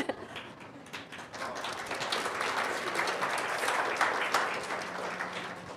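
Audience applauding: the clapping swells over the first two seconds, holds, and dies away near the end.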